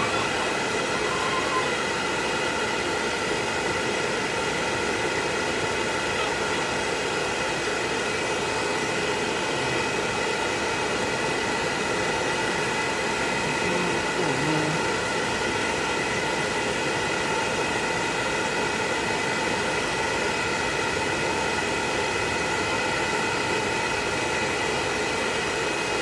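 Electric hair dryer running steadily: an even rush of air with a constant whine that does not change in level.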